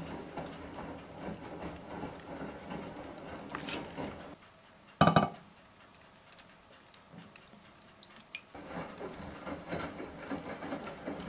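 Kitchenware handling while sauce ingredients go into a stainless steel pot: faint soft knocks and scrapes over a low background hum, and one sharp ringing clink of metal or glass about five seconds in.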